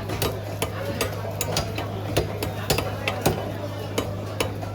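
A blade chopping and tapping on a cutting surface as a large ayer catfish is cut up: irregular sharp knocks, a few a second, over a steady low hum.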